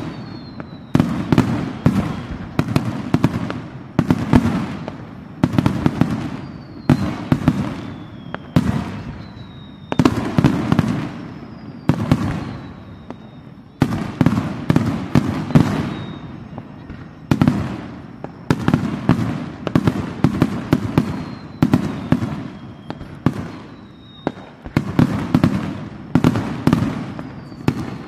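Aerial firework shells bursting overhead one after another, a boom every second or two, often several in quick succession, each trailing off; faint falling whistles are heard now and then.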